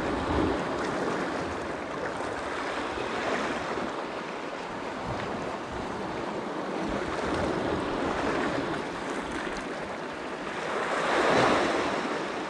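Sea waves washing onto the shore, swelling and fading every few seconds, loudest near the end.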